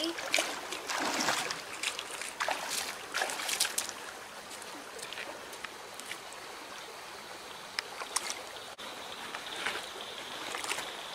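Mountain creek water running over rocks in a steady hiss, with a few short knocks and splashes in the first few seconds.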